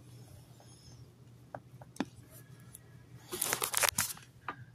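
Handling noise from the recording phone: a faint low hum and a few small clicks, then about three seconds in a second of rustling and scraping as the phone is moved and its microphone rubs against hand or fabric.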